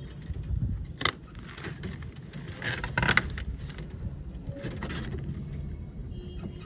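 Metal slide bolt on a wooden chicken-coop door clicking open about a second in, then scraping and rustling as the door is pulled open against its plastic sheeting, with a shorter rustle a couple of seconds later.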